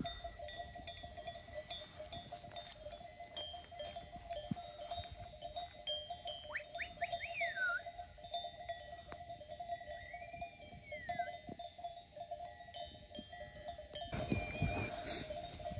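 Faint, steady clinking of bells on a grazing flock of sheep, with a few short high chirps around the middle.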